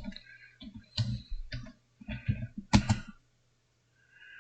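Computer keyboard being typed on in short irregular runs of keystrokes, over a faint steady low hum.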